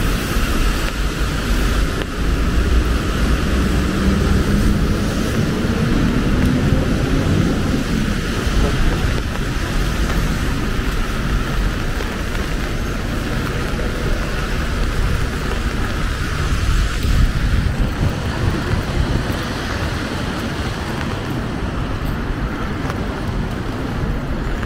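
Busy city street in the rain: a steady rumble of traffic with an even hiss of rain and wet road.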